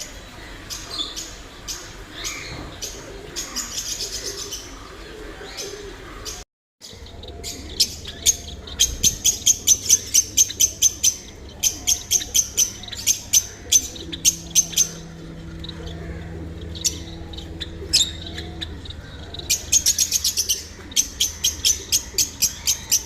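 A roomful of caged pet birds, lovebirds and finches among them, chirping in rapid, high-pitched runs of many short calls. A faint low hum sounds for a few seconds midway.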